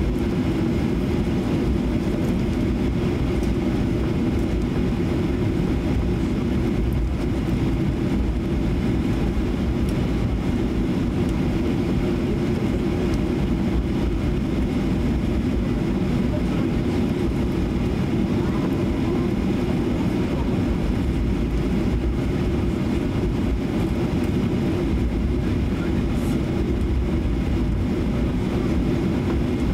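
Steady cabin noise of a Boeing 737-800 taxiing, its CFM56-7B turbofans running at taxi power: an even low rumble with a faint steady whine above it.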